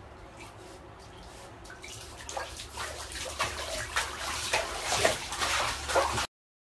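Bathwater sloshing and splashing irregularly as a Shiba Inu shifts and settles down in a filled bathtub, getting louder from about two seconds in. The sound cuts off abruptly near the end.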